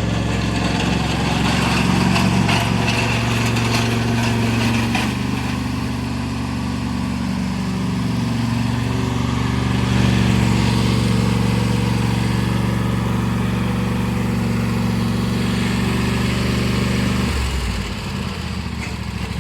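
Lawn tractor engine (a John Deere 165 Hydro with a swapped-in 24 hp engine) running steadily. Its pitch shifts about five seconds in, and the sound drops near the end.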